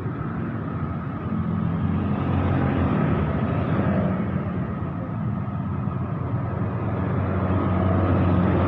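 Roadside traffic: a heavy vehicle's engine running as it approaches, growing louder about two seconds in and again near the end.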